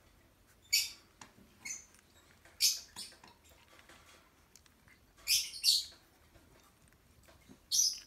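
Young Xoloitzcuintli puppies squeaking: about six short, high-pitched squeaks at irregular intervals.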